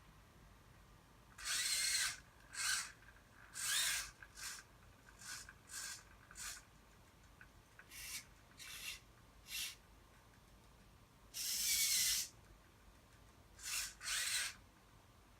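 Small hobby servos in a 3D-printed robot hand and wrist moving in short spurts: about a dozen brief motor whines, each under a second or so, with the longest ones about a second and a half in and about eleven seconds in.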